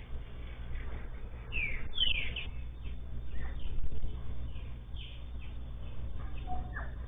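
Several short, high, falling chirp calls, the loudest two close together about two seconds in and fainter ones later, over a steady low hum.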